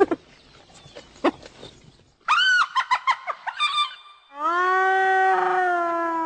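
Hyena calling: a few short, sharp yelps, then a quick run of rising-and-falling cries about two seconds in, then one long drawn-out whining call that holds its pitch and sags slightly at the end.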